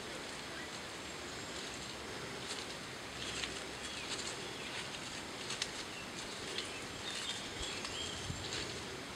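Outdoor ambience: a steady hiss of background noise with scattered faint ticks and a few short, high chirps, the chirps around the middle and near the end.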